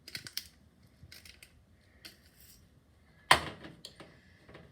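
Handling noises from a sea salt container and its cap: short clicks and rattles in small clusters, then a sharp knock a little over three seconds in.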